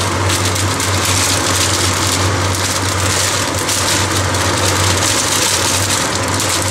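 Meat and vegetables frying in oil in a deep pan: a steady sizzle, with a steady low hum underneath, as green beans are shaken into the pan from a bag.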